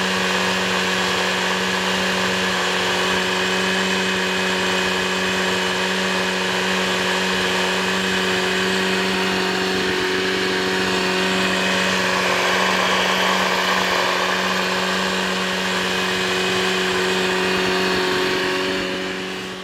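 Yamaha Genesis inline-four aircraft conversion engine, turning a Hy-Vo chain reduction drive with no propeller fitted, running unloaded at a steady 5,500 RPM. The note holds one steady pitch and drops away near the end.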